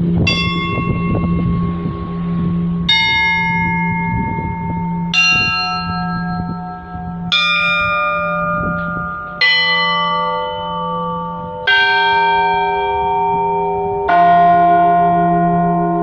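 Russian Orthodox church bells rung from ropes by a single bell-ringer: seven single strokes about two seconds apart, each on a different bell and lower than the last, every one ringing on over the steady hum of the big bell.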